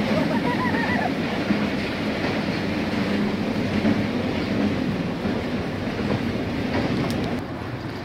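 Steady rushing noise along a dirt creekside trail, a flowing stream or wind on the microphone. There are a few faint high chirps in the first second, and the noise eases off near the end.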